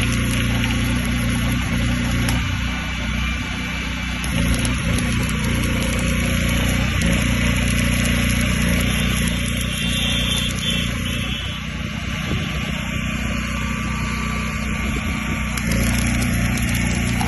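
Petrol welding generator set's engine running steadily at constant speed, with a dense hiss and fine crackle over its hum.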